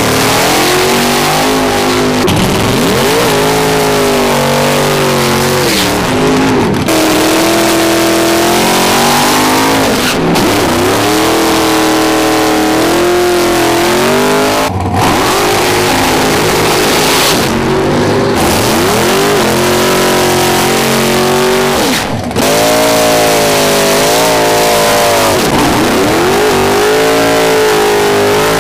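Drag racing car engines revving and accelerating hard, one run after another, their pitch climbing and dropping again, with abrupt breaks between runs.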